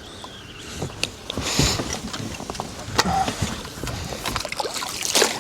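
Scattered knocks, clicks and rustling in a fishing boat as a caught crappie is landed and handled.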